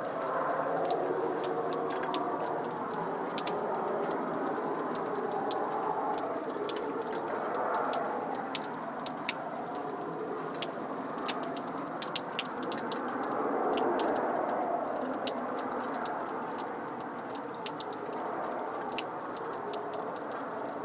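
A rushing roar overhead that sounds like jets or strong wind, swelling and easing in slow waves every few seconds. Many short, sharp crackles run over it.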